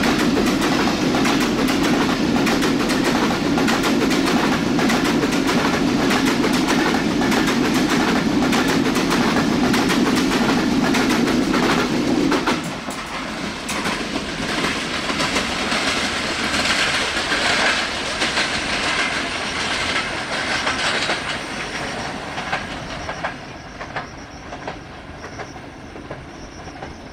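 Broad-gauge passenger coaches of a train rolling past, wheels clattering over the rail joints in a steady clickety-clack. About twelve seconds in the sound drops sharply, then fades away gradually as the train recedes.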